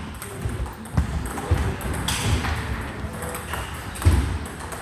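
Table tennis ball striking paddle and table, a few sharp clicks at uneven intervals.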